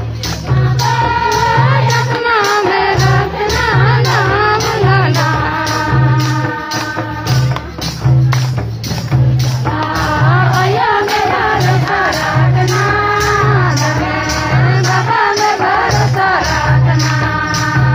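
A devotional song: group singing with a winding melody over a steady drum beat and regular jingling percussion.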